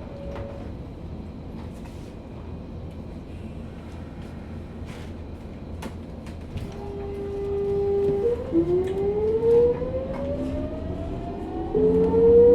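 Sotetsu New 7000 series train with a Hitachi GTO-thyristor VVVF inverter, in car Moha 7357, whose traction motors are known for an unusual noise. It stands quietly at first with a few clicks, then starts off: a steady inverter tone sets in, and from about eight seconds several whining tones rise together in pitch as the train accelerates.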